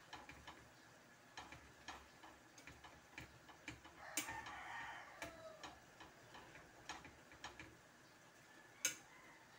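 Metal spatula stirring taro leaves in a stainless-steel frying pan, making faint, irregular clicks and taps against the pan. About four seconds in comes a brief wavering, higher-pitched sound lasting about a second and a half, and near the end there is one sharp, louder clack.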